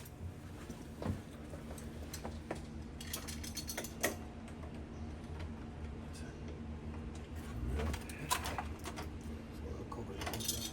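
Scattered light clicks and taps of door hardware and tools being handled, over a steady low hum.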